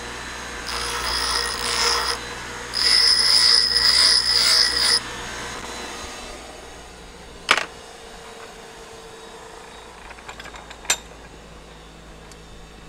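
Bench grinder grinding a small metal part in two bursts pressed against the wheel, then switched off about five seconds in and running down. Two sharp knocks follow.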